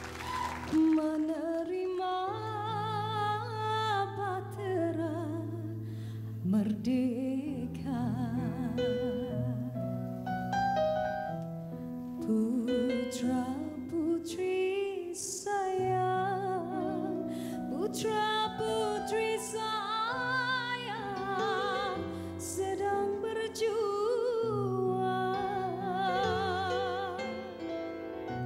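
Woman singing a sustained melody with strong vibrato into a microphone over a band accompaniment of held low notes.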